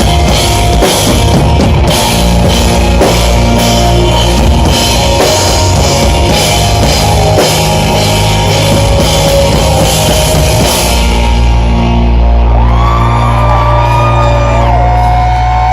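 Live rock band playing an instrumental passage: drum kit and cymbals beating steadily over bass and guitars. About eleven seconds in the drums stop, and a sustained low chord rings on under bending high notes.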